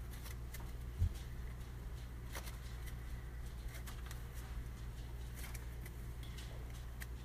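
Faint clicks and light scrapes of a knife tip picking seeds out of apple slices, with a soft thump about a second in, over a steady low hum.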